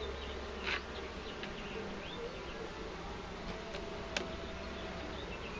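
Honeybees buzzing around an opened hive during a frame inspection, a steady hum of many bees. A single sharp click sounds about four seconds in.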